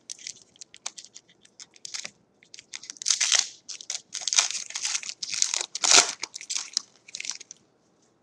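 Plastic wrapper of a trading card pack crinkling and tearing as it is opened by hand. There are light crackles at first, then louder, denser crinkling from about three seconds in, and it stops shortly before the end.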